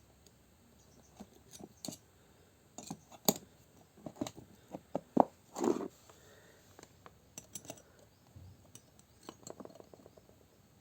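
Irregular metallic clicks and clinks of a caliper being handled and closed on a scooter's kick-starter half-moon gear, with the loudest tap about five seconds in and a short scrape right after it.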